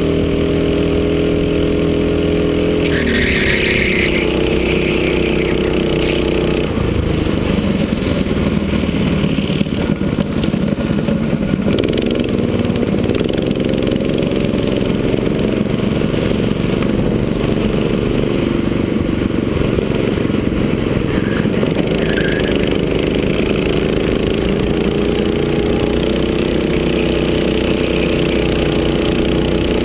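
Go-kart engine heard from the driver's seat while lapping at speed. Its note drops about three seconds in, with a brief high squeal, then climbs again toward the end.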